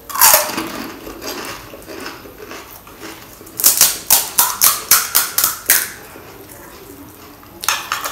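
Crisp fried panipuri shell cracking as a whole filled puri goes into the mouth, then a run of about eight sharp crunches at roughly four a second as it is chewed, close to the microphone. Another short crack near the end as a fresh puri shell is broken open.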